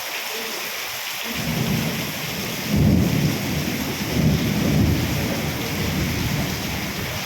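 Thunder rumbling over steady heavy rain. A low rumble builds about a second in, is loudest about three seconds in with a couple more swells, then eases off while the rain hiss carries on.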